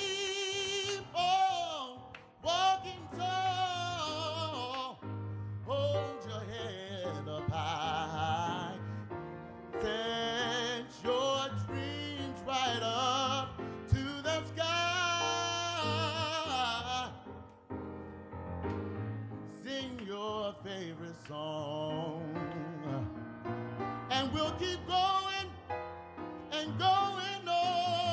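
A man singing live into a microphone with piano accompaniment, holding long wavering notes and sliding through runs of pitch.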